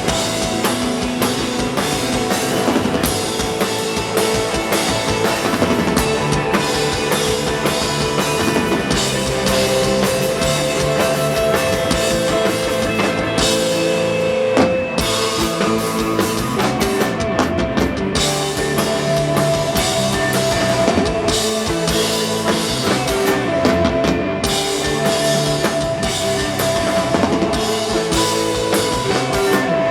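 Instrumental rock band playing live: a drum kit keeping a steady beat with cymbals under long held electric guitar and bass notes.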